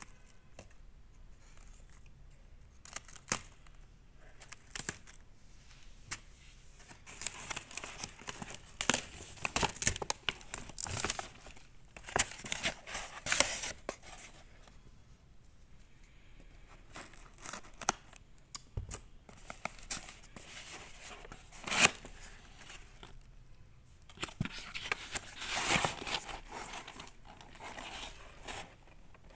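Brown paper delivery bag and packing tape being cut with scissors and torn open by hand, the paper crinkling, then a cardboard pizza box handled and its flaps opened. Sharp snaps come here and there, the loudest about three-quarters of the way through.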